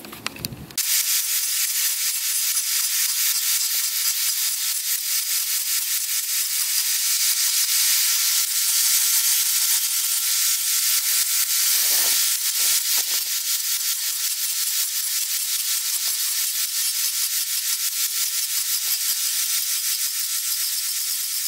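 Corded angle grinder running steadily against rusty sheet steel, abrading the rust off to bare metal. The grinding begins about a second in.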